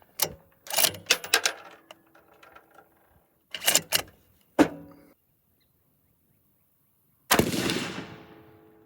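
Several sharp metallic clicks and clacks, then about seven seconds in a single unsuppressed 6.5 Creedmoor rifle shot that fades out over about a second and a half.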